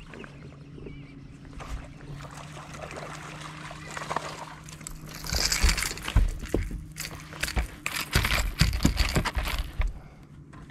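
Water sloshing and splashing against a fishing boat, with several sharp knocks from about halfway through, over a steady low hum.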